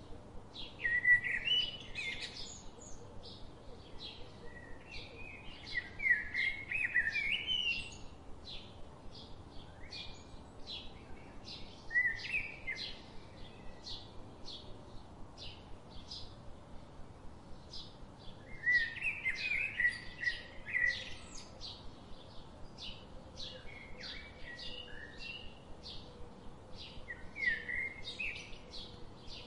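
Birds chirping: a steady run of short, high chirps about two a second, with louder warbling song phrases breaking in about a second in, around six seconds, twelve seconds, nineteen to twenty-one seconds, and twice more near the end.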